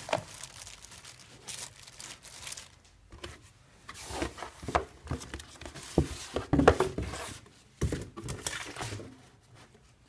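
Hands rummaging through packaging: plastic bags crinkling, cardboard box scraping and knocking, and paper leaflets rustling as they are pulled out. A cluster of louder knocks comes about six to seven seconds in.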